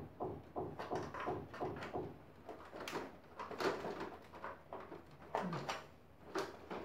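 Irregular clicks, knocks and rattles of the plastic casing and louver parts of a Samsung inverter split air conditioner's indoor unit, being pried and pulled at by hand and with a screwdriver.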